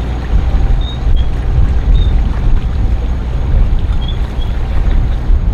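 Wind buffeting the microphone aboard a sailboat underway, a dense low rumble and rush of noise, with a few faint, short, high chirps now and then.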